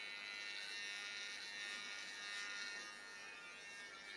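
Cordless electric hair trimmer buzzing steadily as it cuts hair close to a man's scalp, easing slightly near the end.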